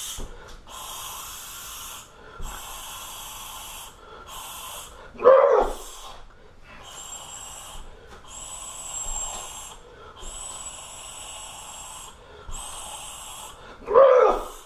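A person breathing hard, with a run of sharp, hissing breaths about a second each. Two louder voiced grunts come about five seconds in and near the end.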